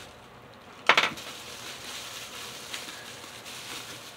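Plastic bubble wrap crinkling and rustling in the hands as it is peeled off, with one sharp, loud crackle about a second in.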